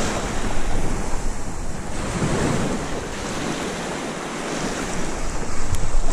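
Waves washing on the beach, with wind buffeting the microphone.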